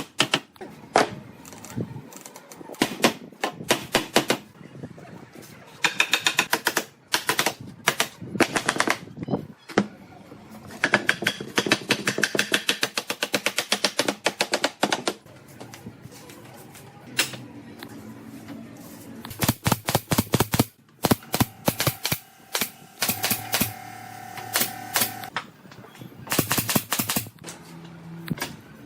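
Repeated runs of rapid, sharp clicking strikes, several a second, each run lasting one to a few seconds with short pauses between them, from hand work on wood.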